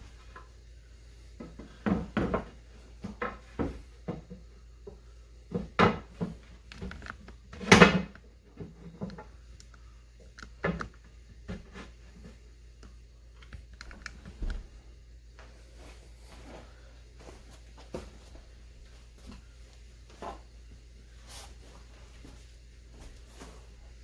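Hollow wooden knocks and clunks as hardwood workbench parts are handled and set into place. They come in a cluster over the first eleven seconds, the loudest about eight seconds in, then thin out to a few faint taps.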